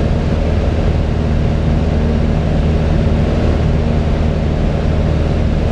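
Piper Cherokee 180's four-cylinder Lycoming engine and propeller running steadily in flight, heard inside the cockpit with rushing airflow noise. The engine hum holds an even, unchanging pitch.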